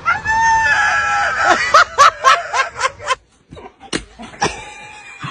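A rooster crowing: a long held call followed by a quick run of short falling notes, then two sharp clicks near the end.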